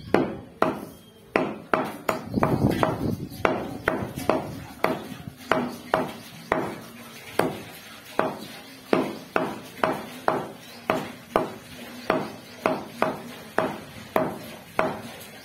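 Meat cleaver chopping goat meat into pieces on a wooden log chopping block: sharp chops about two a second, a quicker flurry a couple of seconds in, stopping shortly before the end.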